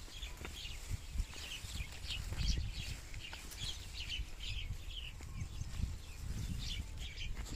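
Small birds chirping in many short, irregular calls, several a second, with wind rumbling on the microphone.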